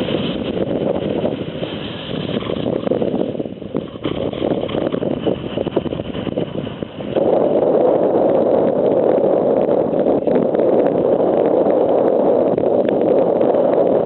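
Gale-force wind blowing across the microphone: a steady, loud rushing noise that jumps louder about halfway through.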